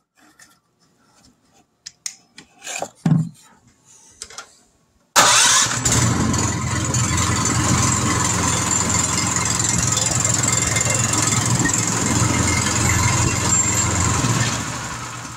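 Faint clicks and clatter of cables and clamps, then a DuroMax XP7HPE 208cc 7 HP single-cylinder engine starts suddenly about five seconds in and runs steadily. Near the end it dies away as it is switched off at its key.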